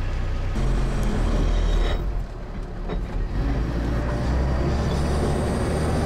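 All-terrain vehicle's engine running with a steady low drone as it drives on. The sound changes about half a second in and drops briefly between two and three seconds in.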